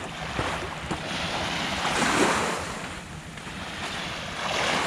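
Waves washing onto a sandy beach, the surf swelling twice, with wind buffeting the microphone.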